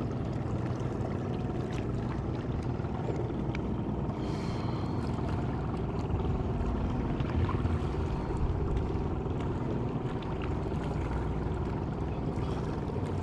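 Steady low rumble with water noise from a small boat on the river, with a brief high tone about four seconds in.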